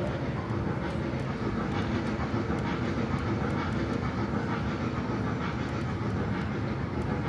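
Mall ride-on train running along the concourse floor: a steady rumble with faint scattered rattles.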